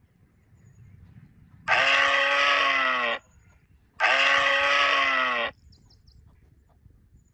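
Deer bleat call, heard twice; the two calls match, each about a second and a half long with a slightly falling pitch.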